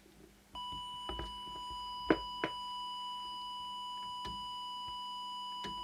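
Steady 1 kHz test tone from an audio oscillator, switched on about half a second in and held, as used to set an FM CB transmitter's deviation. A few sharp clicks fall over it.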